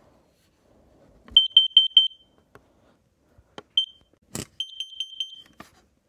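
Kidde carbon monoxide alarm sounding its alarm pattern: four quick high-pitched beeps, a lone beep, a sharp click, then another four quick beeps. The four-beep groups are the carbon monoxide alarm signal.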